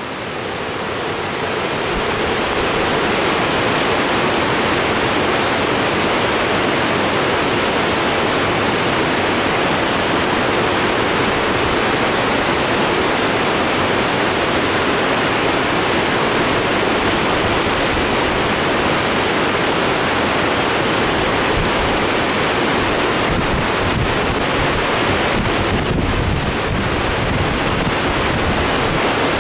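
Steady noise of fast, turbulent creek water churning below a dam, the flow muddy and high after rain. It swells over the first couple of seconds, then holds even.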